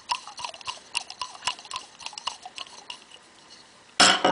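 Rapid small clicks of a ratchet or hand tool backing out a bleeder screw on a Scotts steering damper, tailing off about three seconds in. A short, loud burst of noise follows near the end.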